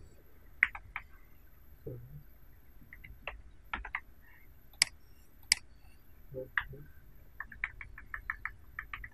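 Computer mouse and keyboard clicks: single clicks scattered through the first half, then a quick run of light taps at about five a second near the end.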